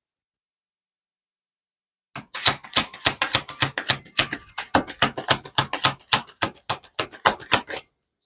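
After about two seconds of dead silence, a deck of tarot cards being shuffled by hand gives a quick, irregular run of sharp card slaps and clicks, about four or five a second, which stops shortly before the end.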